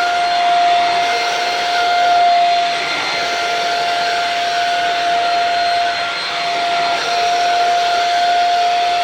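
Shark Rocket vacuum cleaner running on fabric, a steady high motor whine over rushing air, wavering briefly twice as the load changes.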